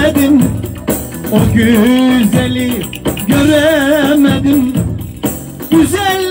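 Turkish oyun havası folk dance music: a melody line of held, wavering notes in short phrases over light percussion.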